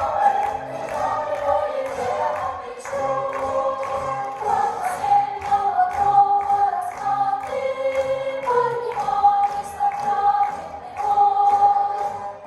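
A song: voices singing a melody in long held notes over an instrumental backing track with a repeating bass line.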